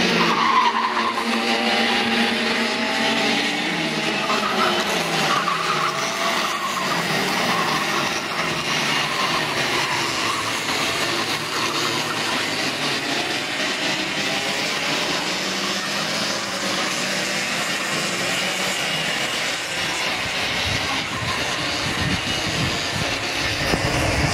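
Several two-stroke racing kart engines buzzing around the circuit, their pitch gliding up and down as they rev through the corners in the first few seconds, then merging into a steady blend of engine buzz.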